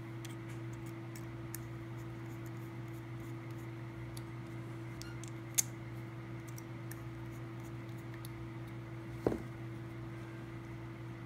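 NEMA17 stepper motor driving a 3D-printed two-stage cycloidal gearbox, running with a steady low hum and faint ticking, with a sharp click about halfway and a short knock near the end.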